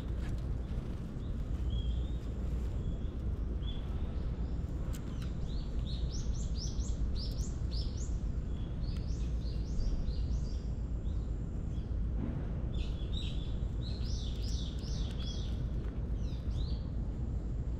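Small birds chirping in quick runs of short, falling high notes, in two long runs in the middle and toward the end, over a steady low rumble.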